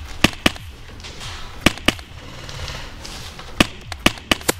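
Airsoft rifle firing: sharp snaps, mostly in pairs about a quarter second apart, about eight in all.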